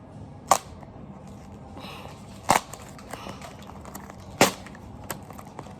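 Wrapping being handled during an unboxing: three sharp snaps or crackles about two seconds apart, with faint rustling between them.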